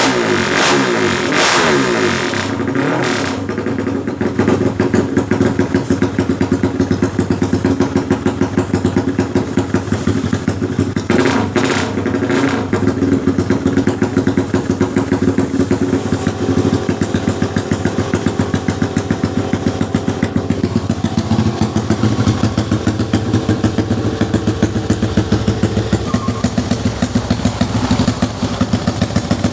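A 265 cc MX motorcycle's single-cylinder engine, revved at the start and settling as the revs fall within the first few seconds. It then idles with a heavy, regular pulse, with a short blip of the throttle around eleven seconds in.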